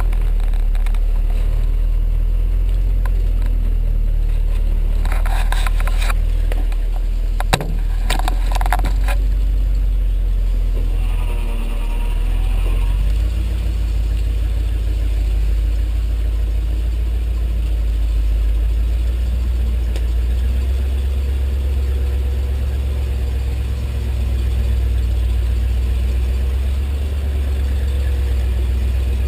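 Vehicle engine running steadily with a heavy low rumble, with a few rattles and a sharp knock a few seconds in.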